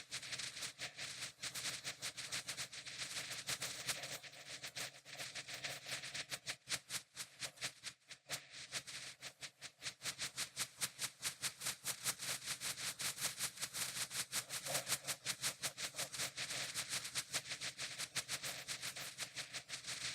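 Fireworks going off in a rapid, continuous string of sharp pops and crackles, thinning out for a few seconds about midway.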